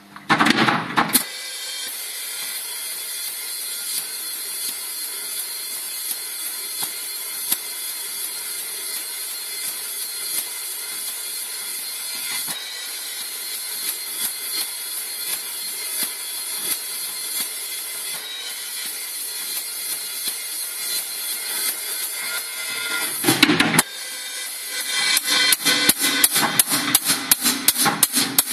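Drum kit, Tama drums with Paiste cymbals, being played. A loud crash opens it, then a steady shimmering cymbal wash with light strikes runs for about twenty seconds. Another loud hit follows, and near the end comes a fast, dense run of drum strikes.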